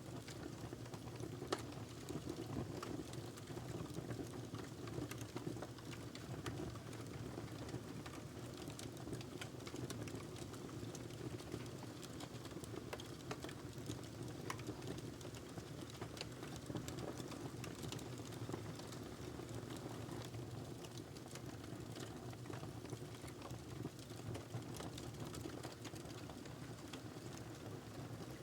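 Wood fire crackling in a fireplace: irregular small pops and snaps over a steady low rumble of burning logs.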